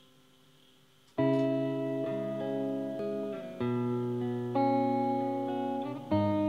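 Tokai ST Stratocaster-style electric guitar played slowly, recorded through a microphone: after about a second of quiet, picked chords ring out one after another, a new one every second or two.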